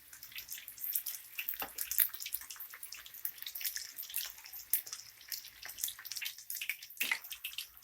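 Batter-coated chicken pieces deep-frying in hot oil, sizzling with a dense patter of small crackles and a few louder pops. The popping comes from water still cooking out of the chicken; the chicken counts as fully fried only once this sound stops completely and the froth dies down.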